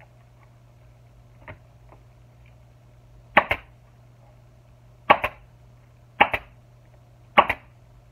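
Pneumatic staple gun firing staples through a motorcycle seat cover into the plastic seat pan: four sharp shots, each a quick double snap, a second or so apart, starting about three seconds in.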